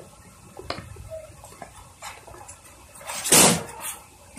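Handling of a woven plastic shrimp-feed sack: a few light knocks, then one short, loud rustle a little over three seconds in.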